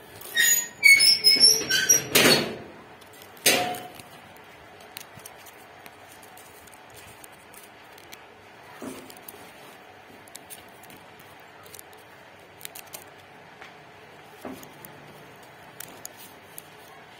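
Wire cage rattling and squeaking as a wooden stick and a kitten's paw knock against its bars: a loud flurry of knocks and squeaks in the first few seconds, one more sharp knock, then only faint scattered taps.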